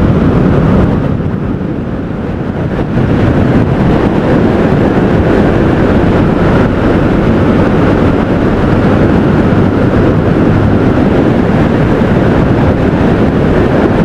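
Benelli motorcycle riding along an open road, its engine and tyre noise mixed with heavy wind rush on the microphone. The level dips briefly about two seconds in, then holds steady.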